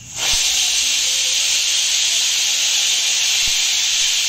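Pressure cooker whistle: steam suddenly bursts out past the weighted vent with a loud, steady hiss. It is the single whistle that marks the moong dal and spinach as cooked.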